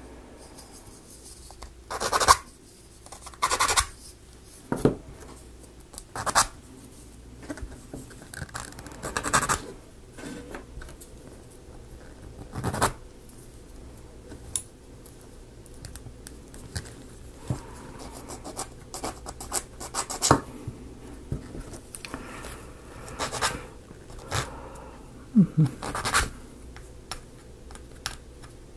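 Laser-cut plywood model parts being handled and fitted together: irregular sharp wooden clicks and taps every few seconds, with soft scratching and rubbing between them.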